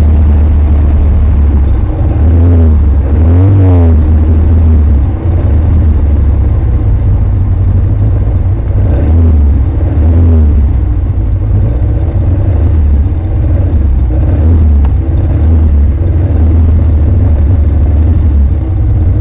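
Caterham Superlight's engine heard from its open cockpit at track speed, the revs dipping and rising again at several gear changes. A heavy low rumble lies under it throughout.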